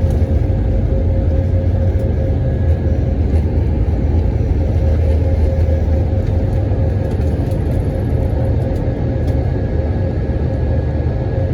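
Steady cabin noise inside an Airbus A321 with its engines running: a deep, even rumble with a steady whine above it.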